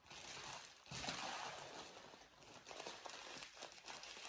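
Faint rustling and crinkling of a tea package being handled.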